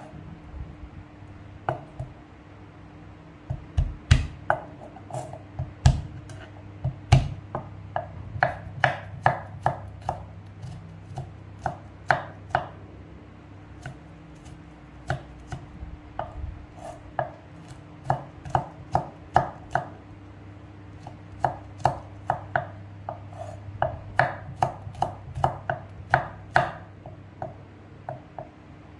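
Kitchen knife slicing garlic cloves on a wooden cutting board: sharp taps of the blade on the board, coming in irregular runs with short pauses.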